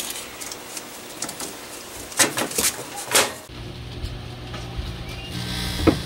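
A few sharp clicks as a microwave oven is shut and set, then the oven starts up with a steady low hum about three and a half seconds in. A sharp snap near the end as the halved grapes spark into plasma.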